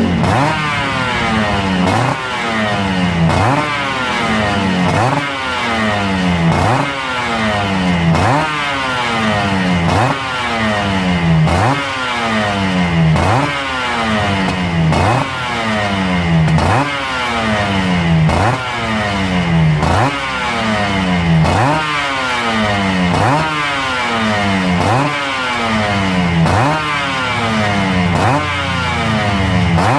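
An engine revved in quick, repeated throttle blips, roughly one every second and a half: each time the revs shoot up almost instantly and then fall back slowly. It shows how fast the engine picks up revs.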